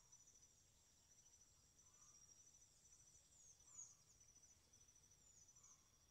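Faint crickets chirping: a steady high-pitched trill in rapid pulses, with a few short falling chirps above it, the loudest just before four seconds in.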